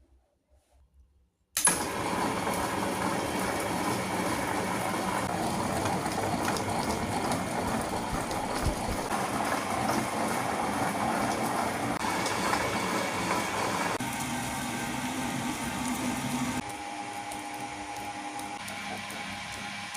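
Peanut butter grinding machine starts suddenly about a second and a half in, its motor running steadily while it grinds. The sound drops to a lower, thinner level near the end.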